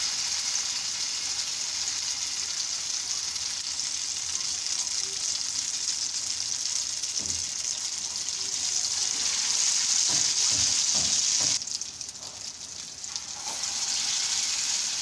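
Egg-dipped potato kebabs shallow-frying in hot oil, a steady sizzle that thins out briefly near the end and then comes back. A few soft knocks in the middle as more kebabs are set into the pan.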